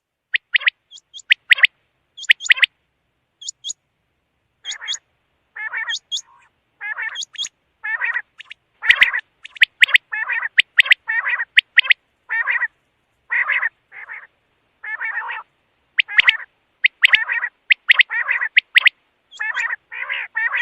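Quail calling over and over in short, sharp notes. After a pause of about two seconds early on, the notes come faster and in close clusters.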